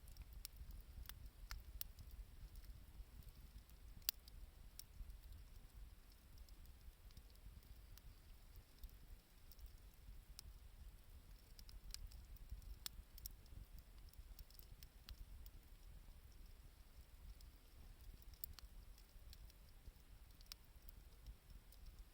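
Wood fire crackling faintly: sparse, irregular sharp pops and ticks, one louder pop about four seconds in, over a faint low rumble.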